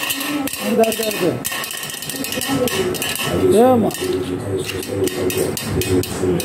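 Two Beyblade spinning tops whirring and rattling across a stainless steel plate, with rapid metallic clicks and clinks as they scrape the plate and knock against its rim and each other. A short rising-and-falling tone comes about three and a half seconds in.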